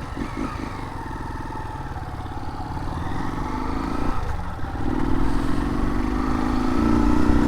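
Single-cylinder Honda Start 190 motorcycle with its exhaust baffle removed, accelerating: the engine note rises, breaks briefly about four seconds in at a gear change, then rises louder again.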